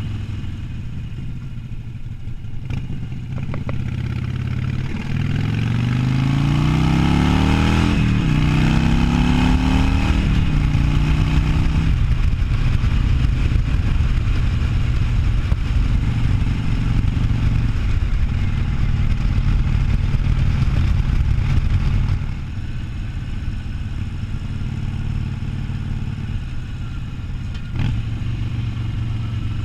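A Harley-Davidson Sportster 1200's air-cooled V-twin on the move. About five seconds in it pulls up in pitch, twice, with a gear change between, then runs loud and steady at cruise. A little past two-thirds through it drops back suddenly as the throttle eases.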